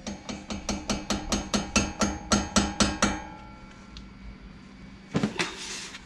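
Rapid metal-on-metal clicking with a slight ring, about seven a second for some three seconds, from newly fitted front brake pads and their retaining pin being shaken and tapped into place in the caliper. A short scrape follows about five seconds in.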